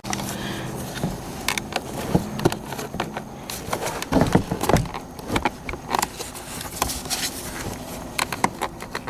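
Shards of broken side-window glass clinking and rattling in short irregular bursts as they are cleared out of a car door, over a faint low buzzing hum.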